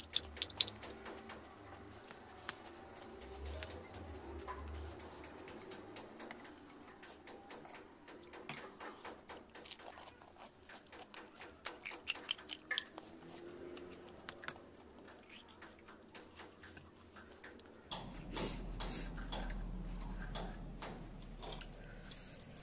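Small crisp cracks and clicks of fried puri shells being broken open with the fingers, mixed with close chewing. A low rumble joins about 18 seconds in.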